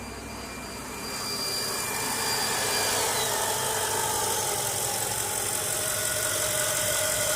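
2002 Mercedes CL500's 5.0-litre V8 idling steadily, growing louder about a second in. It runs smoothly with no ticking and no misfire on its new spark plugs, wires and coil packs.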